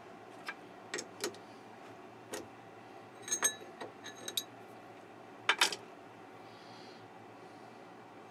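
Scattered metallic clicks and clinks from a chuck key working a three-jaw lathe chuck and a steel part being handled, some of them ringing briefly; the loudest is a pair of sharp clacks about five and a half seconds in. A steady low hum runs underneath.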